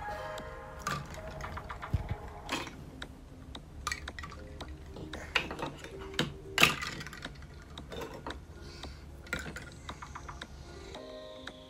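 Hard plastic toy fruit and vegetable pieces clattering and knocking against each other and a plastic tray as a child rummages through them: irregular clicks and knocks, the loudest a little past the middle. Soft background music runs underneath.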